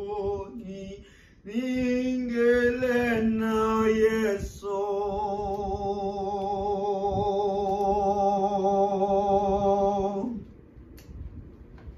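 A young man singing a hymn unaccompanied: a few short sung phrases, then one long held note with a slight wobble that ends about ten seconds in.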